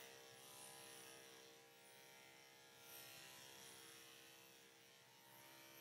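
Cordless pet grooming clipper running with a faint, steady buzz as it cuts through a dog's coat.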